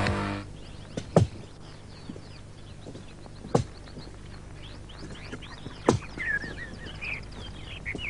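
Title music ends about half a second in. Then birds chirping and twittering, busiest near the end, over three or four dull thuds about every two and a half seconds from a hoe striking the soil.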